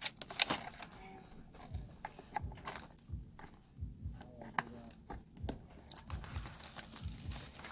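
Scattered light clicks and taps of hands on a plastic electric nail drill control box and its cords, as the handpiece cable's plug is pushed into its socket.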